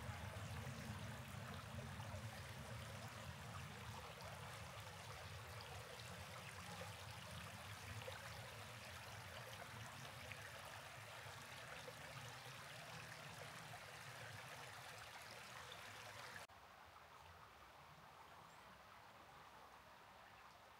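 Faint, steady rush of a flowing stream, dropping suddenly quieter near the end.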